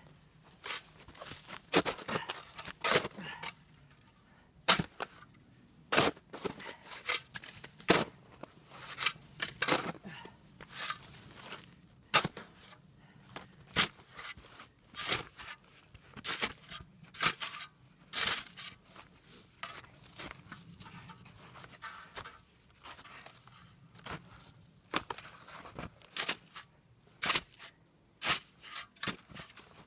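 Packed snow crunching sharply and irregularly, one or two crunches a second, as a small bushcraft snow shovel chops and scoops into it, with snowshoes crunching underfoot.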